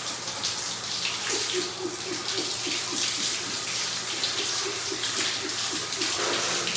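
Water running steadily in a continuous rush.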